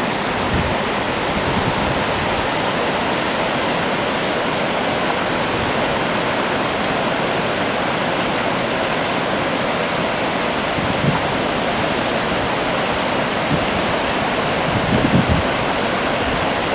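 Fast, turbulent river water rushing and churning over rocks below a weir, a steady loud rush. A few brief low thumps come in the second half.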